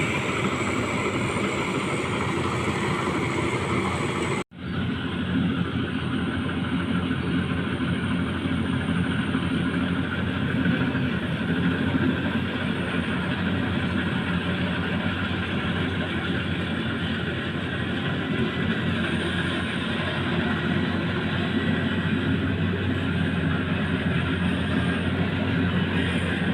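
Rice combine harvester running steadily, its engine hum under a constant mechanical rush, with a momentary dropout about four seconds in.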